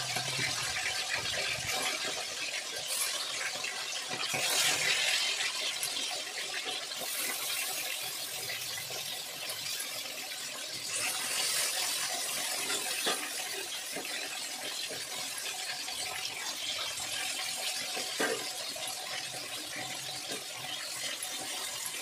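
Marinated chicken pieces frying in hot mustard oil in a kadhai over a high flame, a steady sizzling hiss that swells a little now and then. A few light clinks sound partway through.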